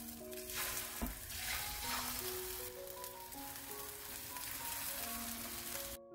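Egg-coated napa cabbage rolls sizzling as they fry in hot oil in a nonstick pan, with a single knock about a second in; the sizzle cuts off suddenly near the end.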